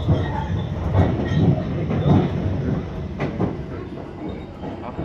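Inside a moving Sounder commuter train coach: the steady rumble of the wheels and running gear on the track, with scattered clacks and knocks.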